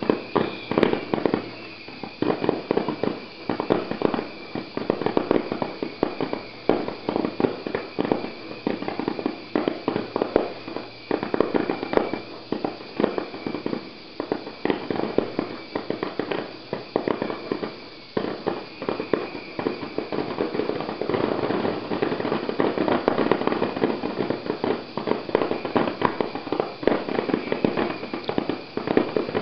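Fireworks finale: a dense, unbroken barrage of rapid, overlapping bangs and crackles as many shells burst at once.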